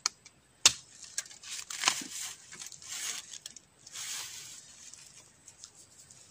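A long-handled digging blade chopping into the base of a bamboo shoot in the ground: a few sharp chops in the first two seconds, the loudest about two-thirds of a second in. Then dry bamboo leaves rustle as the cut shoot is taken up by hand.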